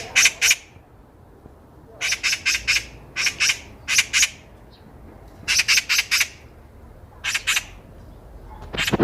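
Oriental magpie chattering: harsh, rattling calls in short runs of several quick notes, repeated every second or so.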